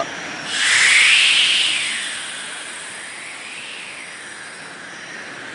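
Cartoon flight whoosh of an android diving through the air: a hissing rush that swells in, sweeps up and then down in pitch with its peak about a second in, then settles to a softer rush with a weaker second sweep a little past halfway.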